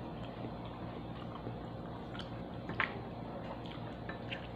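Quiet eating by hand: faint chewing with small squishes and clicks as fingers pick food from a bowl, the sharpest click a little under three seconds in, over a steady low hum.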